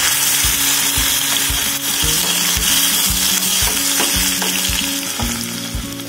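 Tadka sizzling in a small pan: cumin seeds, green chillies and chopped garlic frying in hot ghee, stirred with a spoon. The sizzle eases slightly near the end.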